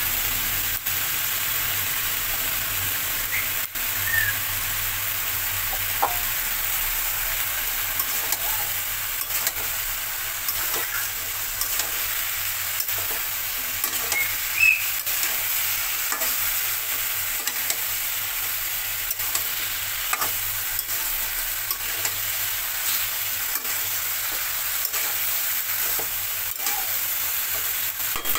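Vegetables sizzling in oil in a metal kadai as they are stir-fried, a metal spatula scraping against the pan now and then through a steady frying hiss.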